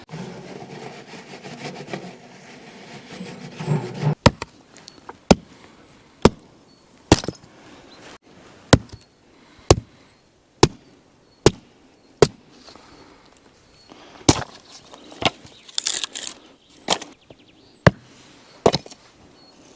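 Firewood being chopped: a steady series of sharp chops, about one a second, starting about four seconds in after some low rustling.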